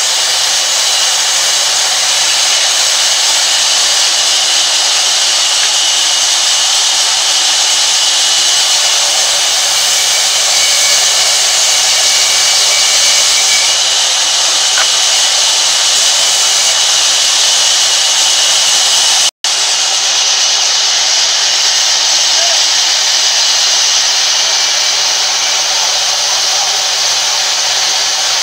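Sawmill band saw running and cutting lengthwise through a large log: a loud, steady hiss and whine. The sound cuts out for an instant about two-thirds of the way through.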